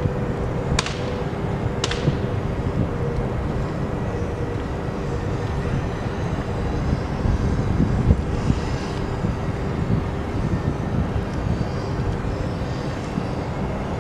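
Steady drone of industrial machinery with a constant low hum, overlaid by wind rumbling on the microphone. There are two sharp clicks, about one and two seconds in.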